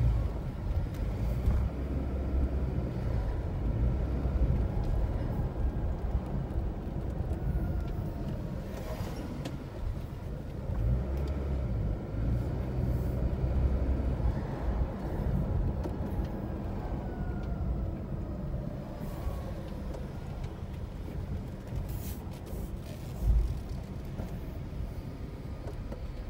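Car engine and road noise heard from inside the cabin while driving, a steady low rumble with the engine note rising and falling a few times. A single low thump about three seconds before the end.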